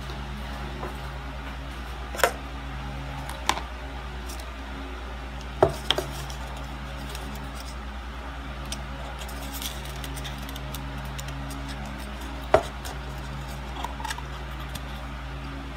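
A few scattered sharp clicks and clacks of eating utensils and a disposable coffee cup knocking against a paper food box and tray, over a steady low hum.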